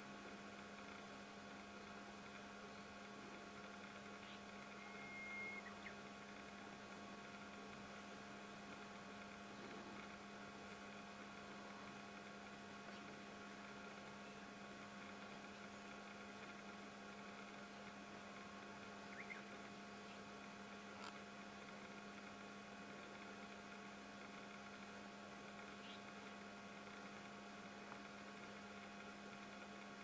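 Near silence with a faint, steady electrical hum made of several unchanging tones. A short, faint high note comes about five seconds in.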